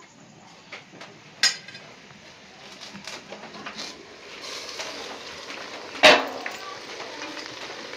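Steel cooking pot and the water-filled steel vessel that serves as its lid clinking as the lid is handled: a sharp clink about 1.5 seconds in and a loud metal clank about 6 seconds in. A steady hiss from the steaming pot of mutton builds from about halfway.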